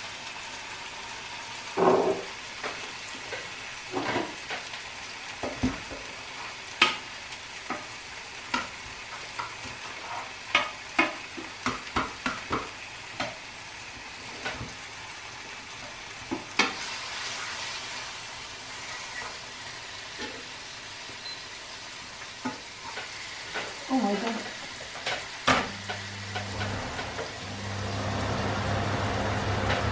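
Cutlets and mushrooms sizzling in frying pans, with a spatula tapping and scraping in the pan as the mushrooms are stirred. Near the end a click as the cooker hood is switched on, and its extractor fan starts with a steady low hum.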